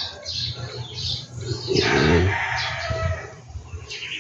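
Breaded chicken pieces sizzling and bubbling as they are lowered into hot oil in an electric deep fryer, in a run of rough bursts that swells about two seconds in.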